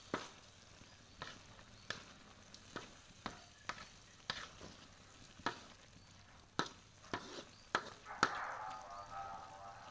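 Spatula clacking and scraping against a wok as baby corn and tofu are stir-fried, about once a second, over a faint sizzle of frying.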